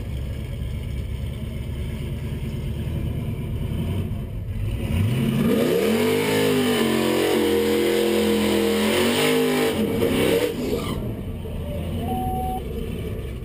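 2012 Camaro SS's 6.2-litre V8 running at a low rumble, then brought up hard about five seconds in. Its pitch climbs and holds high in several steps for about five seconds, then drops back to a low rumble, heard from inside the cabin.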